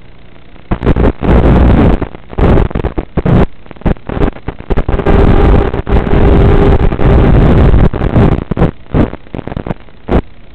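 Loud, irregular bursts of static cutting in and out for most of the clip, with a steady whine under them for a few seconds in the middle: the audio of a mini FPV quadcopter's analog video link breaking up as the signal weakens.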